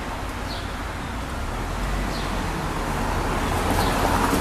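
Downtown street traffic: a passing vehicle that grows louder toward the end, with faint short high chirps repeating about every second and a half.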